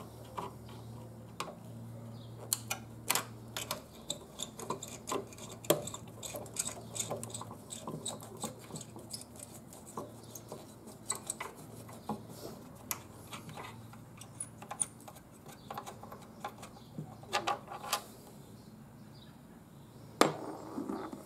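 Hand screwdriver backing an old screw out of a Jeep Wrangler JK taillight housing: scattered small metal clicks and scrapes, with one sharper click near the end.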